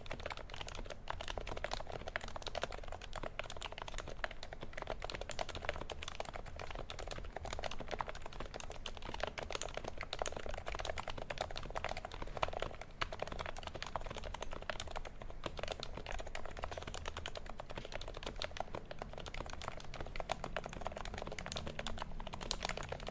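Continuous fast touch typing on a silenced HHKB Pro 2 Topre keyboard: dense, steady keystrokes with a muted, low-pitched thock, dampened by #3 Deskey silencing rings and 3204-lubed sliders on stock domes.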